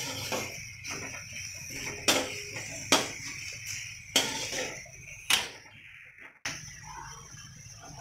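A metal spatula knocks and scrapes against a brass kadhai as vegetables are stir-fried in hot oil, over a steady sizzle. Sharp clinks come roughly once a second, and the sound cuts out briefly about six seconds in.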